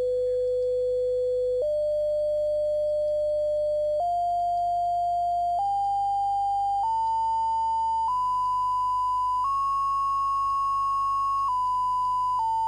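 Pure sine tone generated by a LabVIEW program and played through the computer's sound card. It starts at 500 Hz and steps up in pitch six times, a second or two apart, then steps back down twice near the end, as the frequency setting is changed.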